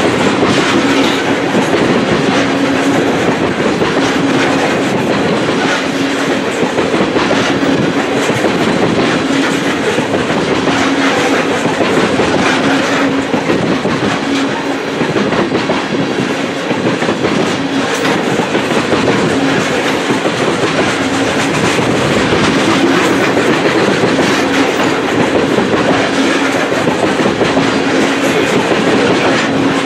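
Tank cars of a long freight train rolling past close by: a steady rumble of steel wheels on rail with rhythmic clickety-clack over the rail joints, and a low hum that fades in and out.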